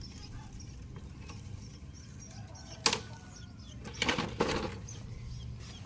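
One sharp knock about three seconds in, then a few short rustling scrapes, over a low steady hum with faint high chirps.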